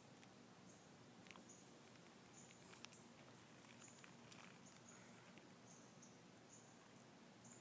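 Near silence: faint outdoor ambience with short, high chirps repeating irregularly about once a second, and a few faint ticks.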